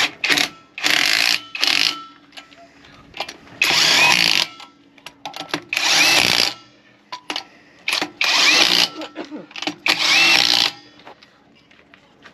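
Cordless power driver with a socket spinning caravan wheel nuts down onto the wheel studs in a series of short bursts, each about a second long with pauses between, as the nuts are run on in a diagonal order before final tightening by hand.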